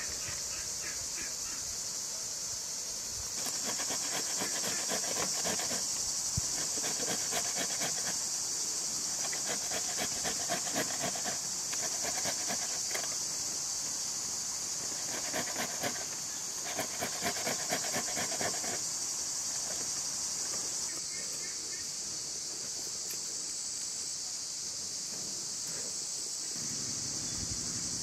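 A ripe tomato rubbed back and forth on a handheld metal grater over a stainless steel bowl: runs of quick rasping strokes starting a few seconds in and stopping about two-thirds of the way through. A steady high-pitched insect chorus runs underneath.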